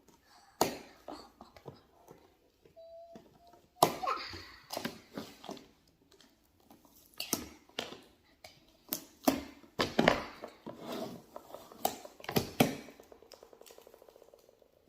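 Irregular clicks, knocks and rustles of toys and packaging being handled, with a short buzzing rattle near the end.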